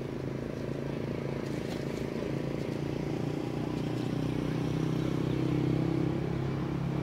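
A motor vehicle's engine running steadily, getting a little louder toward the end and falling away just after.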